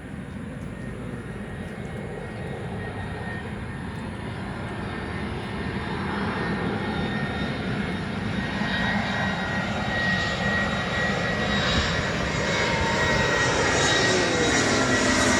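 Jet airliner, a Batik Air plane, approaching: its engine noise grows steadily louder, with a whine that falls in pitch over the last few seconds.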